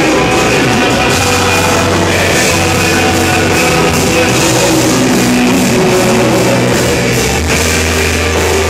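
Live worship music, loud through PA speakers: a man singing into a handheld microphone over a backing band with steady low bass notes.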